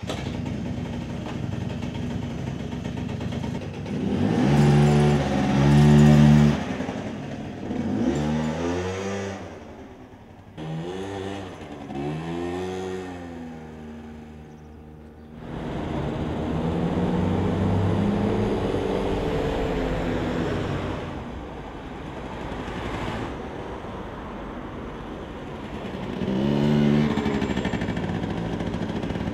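Small motor scooter engine running and being revved, its pitch rising and falling several times, then running more steadily as the scooter rides along the street, with a louder swell near the end.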